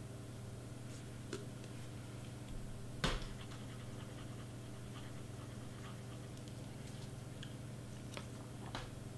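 Faint small taps and clicks of hand crafting work, a gem picker and glue bottle handled over a cardstock project on a cutting mat, with one sharper tap about three seconds in, over a steady low hum.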